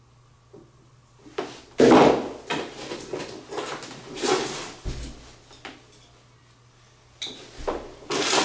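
Hands rummaging among recessed-light parts, a cardboard box and their packaging: irregular rustling and knocking, loudest about two seconds in, with a low thump near the middle and more rustling at the end.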